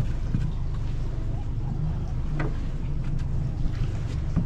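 A crab pot being hauled up by its rope over the side of a small aluminium boat, with a few light knocks, over a steady low rumble of wind on the microphone.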